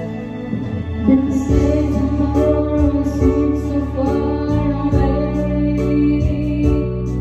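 Karaoke music with guitar and a beat, and a girl singing along into a microphone.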